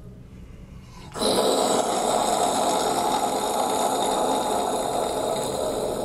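A person imitating something passing by with the mouth: a long, rushing, breathy roar that starts suddenly about a second in and slowly fades.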